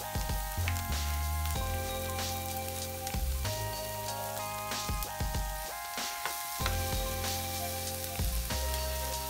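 Chopped onions, carrots, celery and garlic sizzling as they are tipped into a hot frying pan and stirred with a metal spoon, under background music with a heavy bass line.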